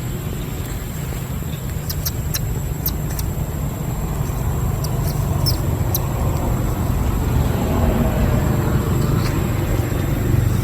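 Steady low rumble of outdoor background noise, with short high chirps scattered through the first half.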